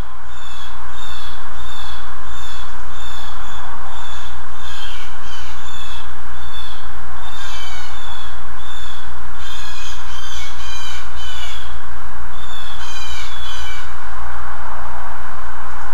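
Blue jays giving harsh, repeated 'jay' calls: an even series of short calls at first, then quicker clusters of calls in the second half. A steady low hum and hiss runs underneath.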